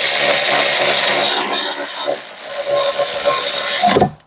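Cordless electric ratchet running loaded for about four seconds, driving in a rear brake caliper bracket bolt, with a brief dip partway through; it cuts off suddenly as the bolt seats.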